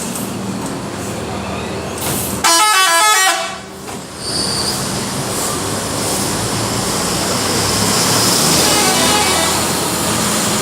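A bus's multi-tone telolet horn plays a loud, quick run of stepping notes for about a second, over steady road-traffic noise. A fainter run of horn notes comes later.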